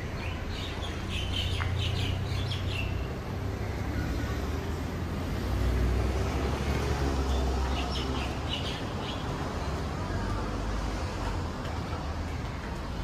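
Street ambience: a steady traffic rumble that swells as a vehicle passes about halfway through, with bursts of bird chirping near the start and again about two-thirds of the way in.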